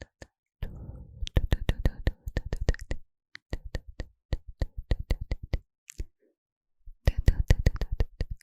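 Rapid close-up tapping, about six or seven crisp taps a second, in runs of one to two seconds with short silent gaps between them.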